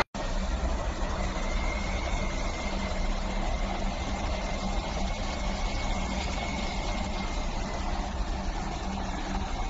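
Steady low rumble and hiss of typhoon-force wind, with a faint thin whistle for a few seconds in the middle.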